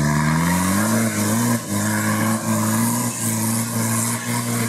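Mitsubishi Pajero's engine revving hard under load as it climbs a steep dirt slope. The revs rise over the first second, then hold high with a couple of brief dips.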